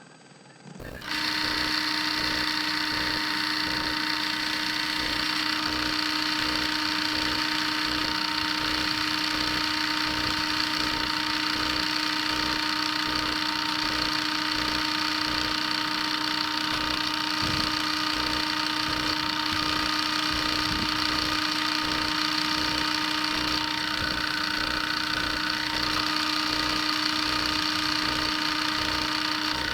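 Small hand-held rotary tool (engraver) switching on about a second in and then running steadily with a constant whine, drilling or grinding away part of the shielding trace on the key fob's circuit board.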